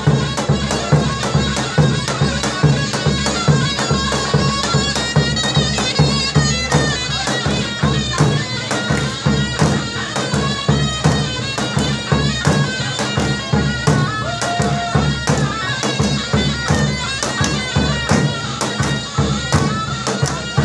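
Kurdish folk dance music: a loud, reedy wind melody over a steady drone, driven by a regular beat on a large double-headed dahol drum.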